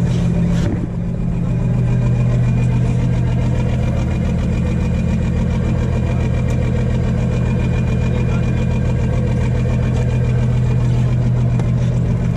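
A boat's engine running steadily with a deep, even hum. Its loudness dips briefly about a second in, then it settles back to the same drone.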